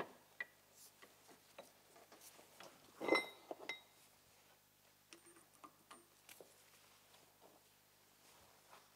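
Parts being handled at a workbench: scattered light clicks and taps, with one louder metallic clink about three seconds in that rings briefly.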